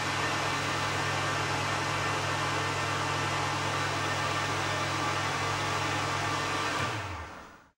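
Electric hand dryer blowing, a steady rush of air over a low motor hum. About seven seconds in, the hum drops in pitch as the motor winds down and the sound fades away.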